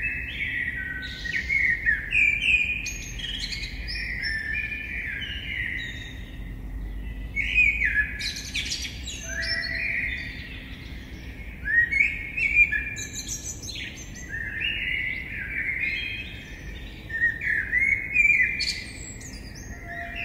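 Several wild birds singing at once: a steady chorus of overlapping short, high chirping and trilling notes with no break.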